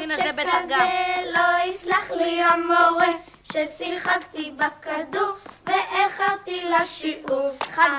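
A child singing a song in Hebrew, one clear voice in short, sustained sung phrases.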